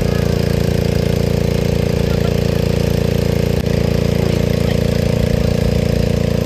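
An engine running steadily at an even speed, with a constant low drone.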